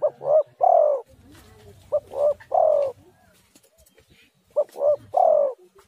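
Spotted dove cooing its three-note song three times, about two seconds apart: two short notes followed by a longer falling coo in each phrase.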